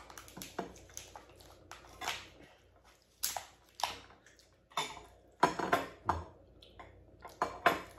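Steamed lobster shells being cracked and pulled apart by hand: scattered, irregular cracks and clicks, a flurry of them past the middle, with some clatter of shell and dishes on the table.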